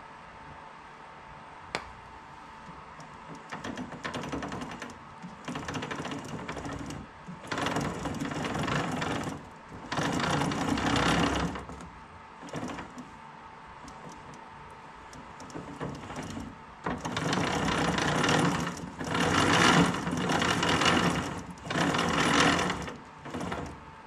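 A small motorized tool running in a series of short bursts, each a second or two long, with pauses between. A single sharp click comes about two seconds in.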